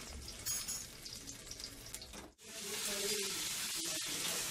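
Garlic, green chilli and ginger paste sizzling in hot oil in a wok as it is fried. The sizzle is quiet at first, then cuts out briefly about two seconds in and comes back louder and steady.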